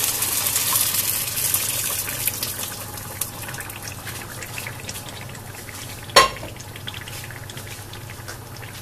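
Hot oil and fried onions sizzling in a steel pan as a thick mash of cooked greens and moong dal is poured in; the sizzle is loudest at first and dies down over the first few seconds to a soft crackle. A single sharp click about six seconds in.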